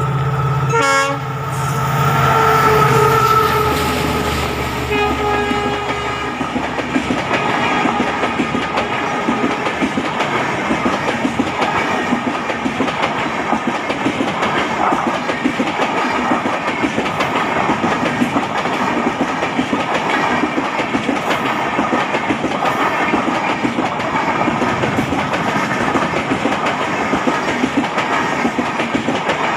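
Indian Railways express train sounding its horn, a loud held chord for the first few seconds, then the fast rattle and clatter of its coaches running past at speed over the rail joints.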